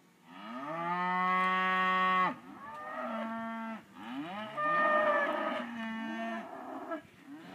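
Cattle mooing: one long moo that rises and then holds for about two seconds, followed by about three shorter moos.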